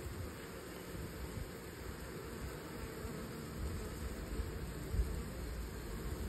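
Steady buzzing of a newly installed package of Italian honey bees swarming over the package box and hive.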